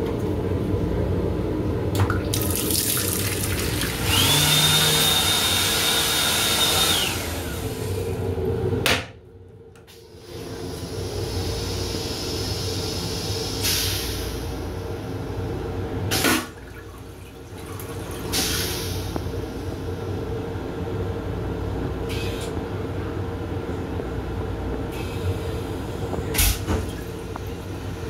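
Restroom fixtures in an M7 commuter railcar over the car's steady running noise. First a few seconds of hissing from the washbasin's push-button fixtures, with a high steady whine partway through, then a sharp click. Later come scattered clicks and the toilet bowl's rinse near the end.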